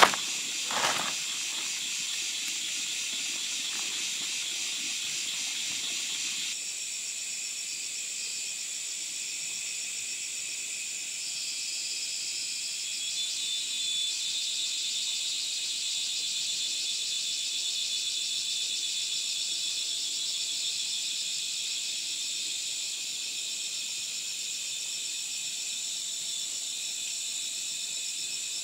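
A steady, high-pitched chorus of forest insects. In the first second a sack is shaken out, with two short rushes of powder pouring.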